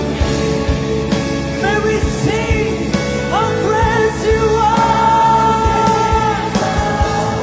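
Worship band music with a steady drum beat under a lead melody whose notes slide up into long held notes, with no words sung clearly.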